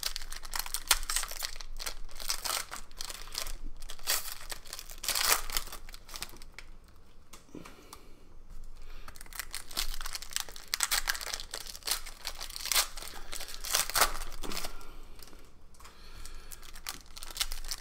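Foil wrappers of Panini Prizm basketball card packs being torn open and crinkled, pack after pack, in many short crackly rips.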